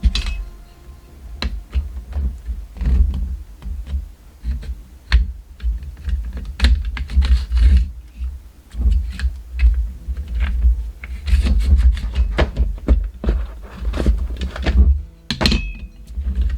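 Irregular clicks, taps and knocks from the metal legs and leg latches of a vintage Velbon tripod being worked by hand, with dull thuds of handling throughout.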